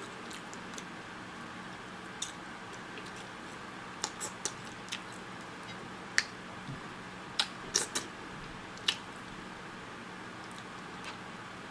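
Close-miked eating of a sauce-drenched seafood boil: scattered wet mouth smacks, slurps and sharp clicks, a few in quick clusters around the middle, over a faint steady hum.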